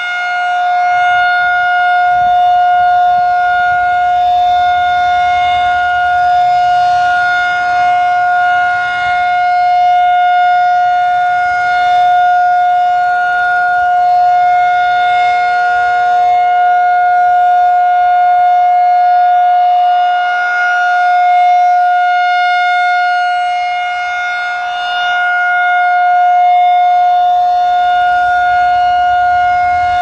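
Federal Signal 2001-SRN electromechanical siren sounding its Full Alert signal: one steady, unchanging tone, loud, that swells and fades slowly as the horn rotates.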